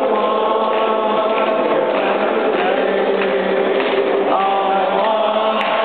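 A group of people singing together in unison, holding long notes that change pitch about once a second, in a large marble rotunda.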